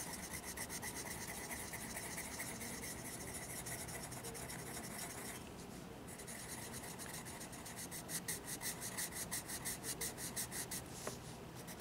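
Colorless blender pencil rubbing in small circles over a waxy layer of colored pencil on sketchbook paper, blending the color: a steady scratchy rubbing. It pauses briefly about halfway, then goes on in distinct strokes, about four a second, near the end.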